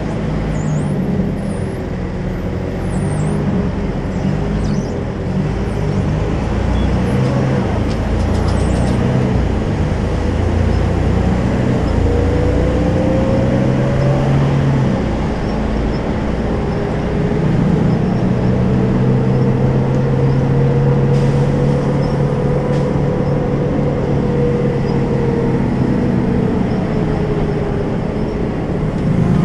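Volvo B12M bus's 340 hp twelve-litre straight-six diesel engine running under way, with its ZF gearbox. The engine note climbs and falls several times as the bus drives.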